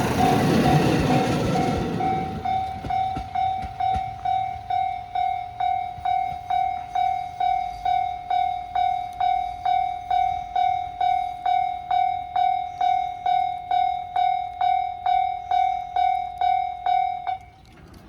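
Japanese level-crossing warning bell ringing in even electronic strokes, about two a second, as the noise of a KiHa 54 diesel railcar running through the crossing dies away in the first two seconds. The bell cuts off suddenly near the end, the sign that the train has cleared the crossing.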